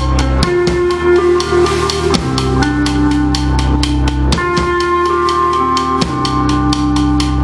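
Band music: a drum kit keeps a quick, steady beat under sustained bass notes and guitar, with the notes changing every second or two.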